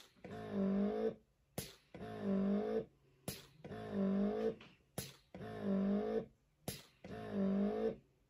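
Lansinoh Signature Pro double electric breast pump running its suction cycle. It repeats about every one and a half seconds, five times: a click, then about a second of wavering motor hum as it draws suction, then a short pause.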